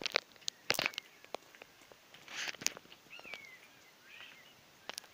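Footsteps crunching in fresh snow, with a few short bird chirps in the middle.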